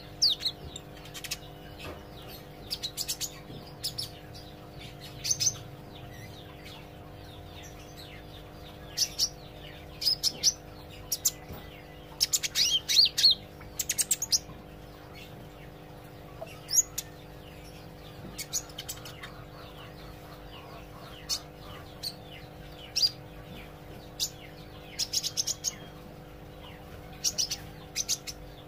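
A green sunbird (kolibri ijo) practising its song: irregular bursts of high, thin chirps and twitters every second or few seconds, the densest cluster about halfway through, over a faint steady hum.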